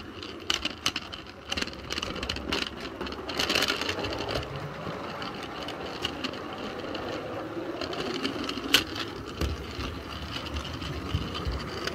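16mm-scale model train heard from one of its own wagons: a Roundhouse 0-6-0 electric loco and tipper wagons running on garden-railway track, with a steady mechanical running noise and frequent small clicks and rattles of wheels over the rail, plus one sharp knock about nine seconds in.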